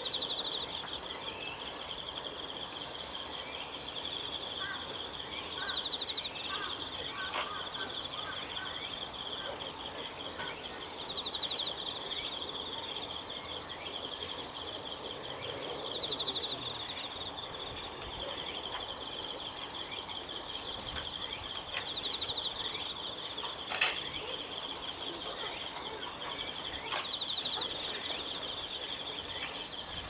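Outdoor ambience: a steady high-pitched chirring that swells about every five seconds, with a few sharp clicks scattered through it.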